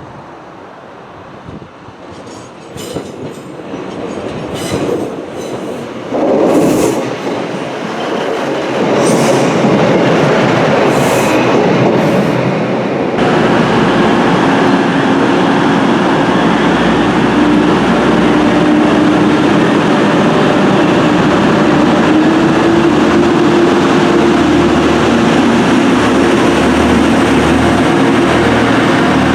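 A train approaching and running past: sharp clicks of wheels over rail joints come in over the first several seconds as it nears, then a loud steady rumble holds from about nine seconds in.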